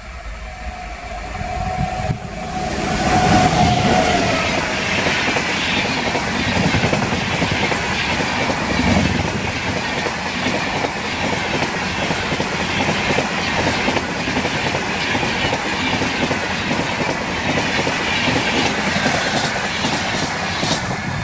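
A WAP-7 electric locomotive and its LHB passenger coaches pass close by at speed. The noise swells about two seconds in as the locomotive arrives, then settles into a steady rumble with rapid clickety-clack of wheels over the rail joints as the coaches go by.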